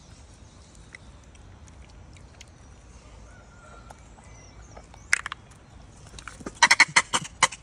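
Faint small clicks of a rhesus macaque handling a plastic jelly cup over a low steady background. About five seconds in, and again more densely near the end, come runs of loud, sharp crackling clicks as the monkey's hand grabs at the phone.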